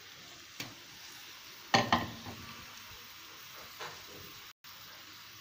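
Minced onion frying in a pan with a steady sizzle as minced meat is tipped in, with a few knocks against the pan, the loudest about two seconds in.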